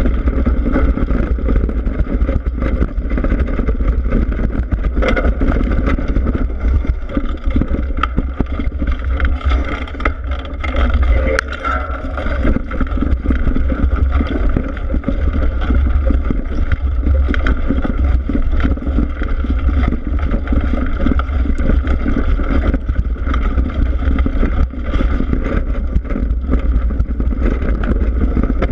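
Steady wind buffeting on an action camera mounted on a mountain bike's suspension fork, with the front tyre rumbling over a dirt trail. Frequent short knocks and rattles come through as the fork takes bumps.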